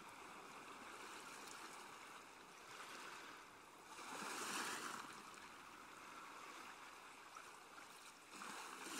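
Faint, steady rushing of water, swelling briefly about four seconds in.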